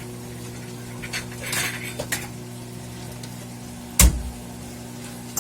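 Metal cooking utensil scraping and clinking against a pan while stir-frying, with one loud knock about four seconds in, over a steady low hum.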